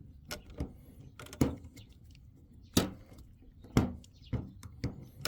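Handling sounds of a battery cell tester and cell being readied: a series of separate sharp clicks and knocks, the loudest about one and a half, three and four seconds in.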